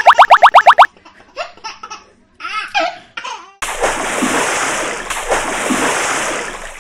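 Cartoon sound effects: a run of quick rising blips that stops just under a second in, then short bursts of child-like giggling, then a steady rush of noise for about three seconds.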